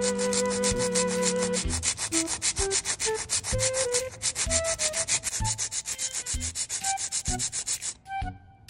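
Hand nail file rasping rapidly back and forth along the side wall of a clear plastic C-curve nail tip, about eight even strokes a second, stopping shortly before the end. Soft background music plays underneath.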